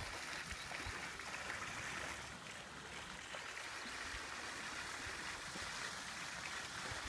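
Steady splashing rush of water from a small fountain aerator spraying up into a pond, with a low, uneven wind rumble on the microphone.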